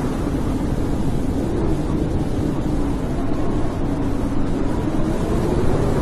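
Blizzard wind blowing steadily with a deep rumble, and a low moaning howl that slowly wavers in pitch.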